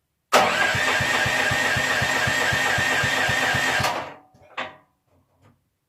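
Lifan engine being cranked by its starter for about three and a half seconds without catching, then cutting off sharply. A steady whine runs over a regular chugging of compression pulses, followed by one short clatter. It fails to fire because the camshaft was refitted out of time after popping out during assembly.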